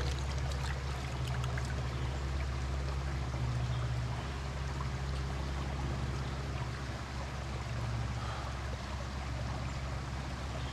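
Shallow stream running over rocks, an even rushing of water with a steady low rumble beneath it.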